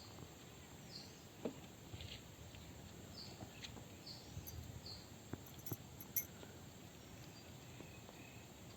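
Faint outdoor ambience: short high chirps repeat about once a second over low background noise, with a few light clicks.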